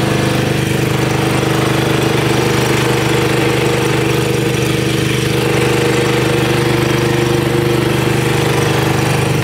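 An engine running steadily at a constant speed, its pitch unchanging throughout.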